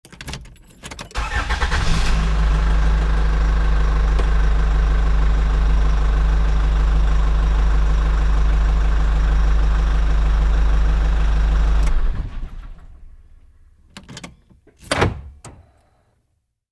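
Truck engine cranked and catching, then idling steadily with a deep low drone for about ten seconds before being shut off and running down. Two sharp knocks follow near the end.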